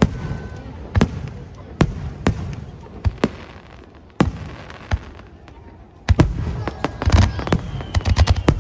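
Aerial fireworks exploding: single sharp bangs about once a second, then from about six seconds in a rapid barrage of bangs and crackling.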